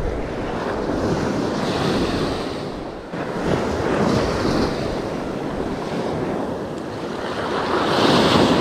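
Small sea waves breaking and washing up over a sandy beach, the surf swelling and ebbing every few seconds, with wind buffeting the microphone.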